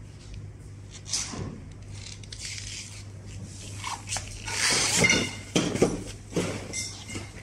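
Heavy upholstery fabric being pulled and smoothed by hand on a sewing table: irregular rustling and brushing, loudest around four to six seconds in, over a steady low hum.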